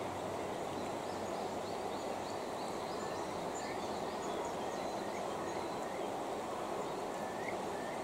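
Steady rush of a mountain river's flowing water, with small birds chirping in short high calls over it from a few seconds in.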